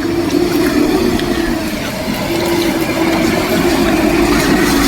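A vehicle engine running with a steady hum, under a loud, even hiss of heavy rain and water.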